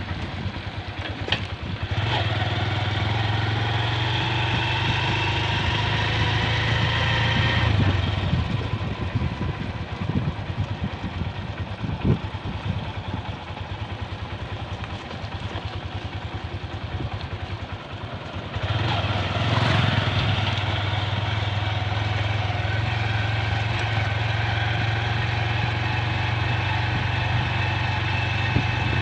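Motorcycle engine running while riding, a steady drone that drops quieter for about ten seconds in the middle and then picks up again. There is one sharp knock near the middle.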